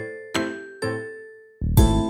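Background music: bright, bell-like notes struck every half second or so, each fading out. Near the end a heavier beat and bass come in and the music grows louder.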